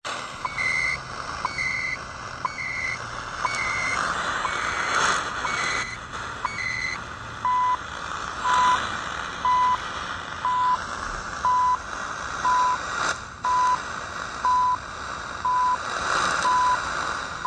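CHU Canada shortwave time signal on 3330 kHz heard through a Yewrich YR-RU8 portable receiver's speaker over shortwave hiss and static. Each second is marked: for the first seven seconds by a short tick followed by a higher warbling burst of data tones, the station's digital time code, then by a plain steady beep about a third of a second long.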